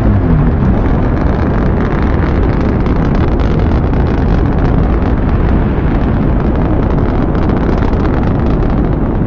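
Turtle-kaiju monster sound effect: a loud, steady, noisy low rumble.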